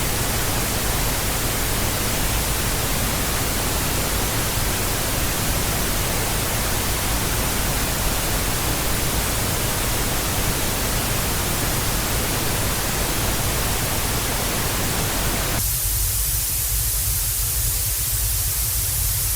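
Television static: a steady, loud hiss of white noise. About three-quarters of the way through it switches abruptly to a thinner, brighter hiss with the low end gone.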